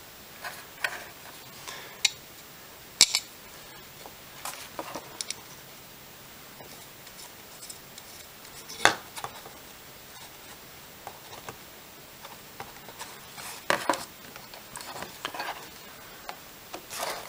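Scattered light clicks, taps and rubbing as small standoffs are hand-twisted into a carbon fibre quadcopter frame and the frame plate is handled. The sharpest clicks come about three, nine and fourteen seconds in.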